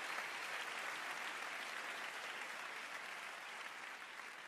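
Theatre audience applauding, a steady wash of clapping that slowly dies down.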